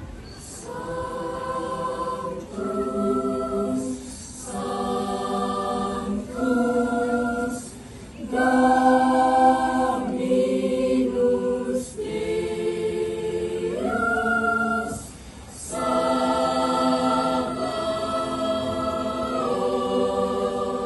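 Mixed choir of junior-high school girls and boys singing held chords in short phrases, with brief breaks between the phrases.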